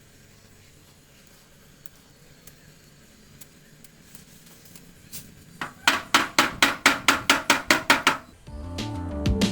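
Hammer rapidly tapping the sheet-metal hood of a VW Beetle to work out a dent, about six sharp blows a second, preceded by a few faint taps. Music comes in near the end.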